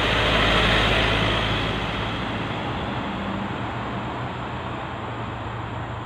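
A car passing on the road: tyre and engine noise that peaks about a second in and then slowly fades away.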